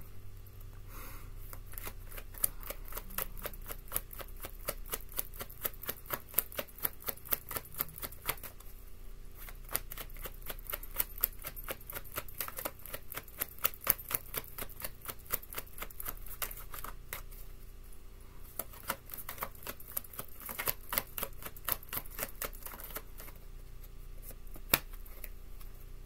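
Tarot deck being shuffled by hand: rapid runs of card clicks and flicks in several bursts with short pauses between them, and one sharper snap near the end.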